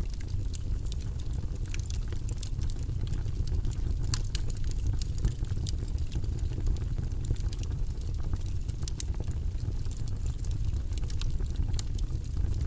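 Wood fire burning, crackling with scattered sharp pops over a steady low rumble.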